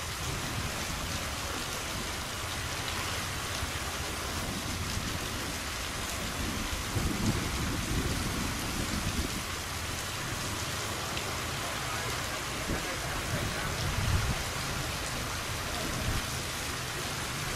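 Fast river current rushing through a sluice: a steady, even hiss of strong flowing water, with low rumbles swelling about seven seconds in and again near fourteen.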